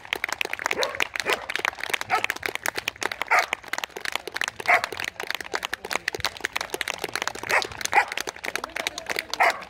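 Hand clapping, fast and uneven, close to the microphone, with applause behind it and several short, high yelps scattered through it.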